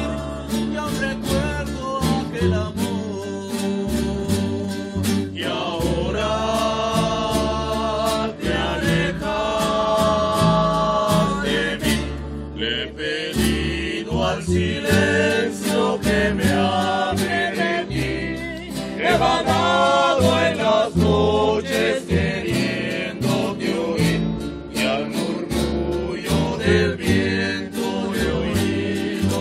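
A rondalla playing live: several acoustic guitars strummed in a steady rhythm, with a group of voices singing a melody together.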